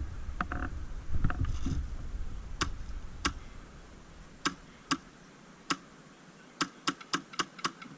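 Airsoft guns firing single shots across the field: sharp, irregular snaps, about ten in all, with a quick run of several near the end, over faint rustling of the player's movement at the start.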